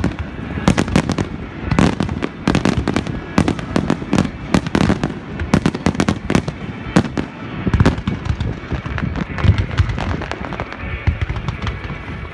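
Fireworks bursting overhead in quick, irregular succession: many sharp cracks and bangs, several a second, over a continuous low rumble of booms.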